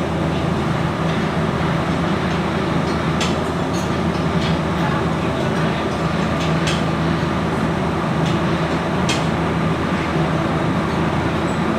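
Steady low machinery hum running throughout, with a few short, sharp metallic clinks from tools and turbocharger parts being handled.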